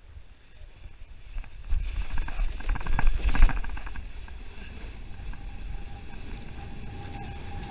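Snow tube sliding fast down a packed-snow tubing run, with wind rumbling on the body-worn camera's microphone. The rushing, scraping noise builds about two seconds in, is loudest a little after three seconds, then settles into a steady rush.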